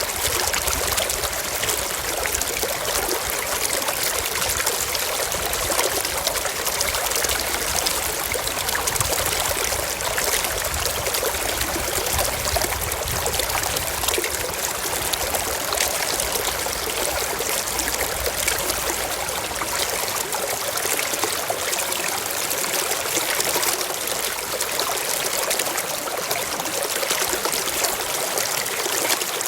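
Mountain stream flowing over rocks, a steady rushing and trickling of water.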